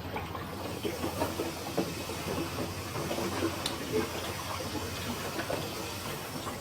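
Electrolux 15 kg top-load washing machine running on test, its drive turning the whole basket for spin: a steady running noise with many light irregular clicks and rattles.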